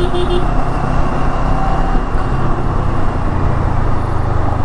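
Kawasaki Versys 650's parallel-twin engine running steadily while the motorcycle is ridden, with road and wind noise. A quick run of beeps stops about half a second in.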